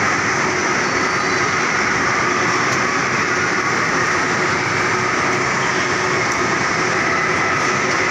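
Steady din of electric bumper cars running around an indoor rink, a rolling rumble with no breaks.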